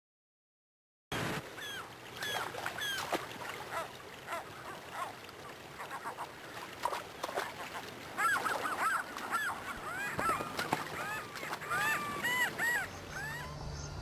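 A flock of gulls calling: many short, arched cries, repeated and overlapping. They start about a second in, grow busiest midway and stop shortly before the end.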